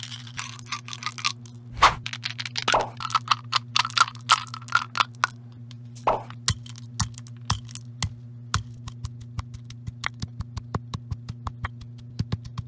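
Candies and candy sprinkles clattering into a granite mortar and being crushed with a granite pestle: a run of sharp cracks and crunches that come quicker toward the end, over a steady low hum.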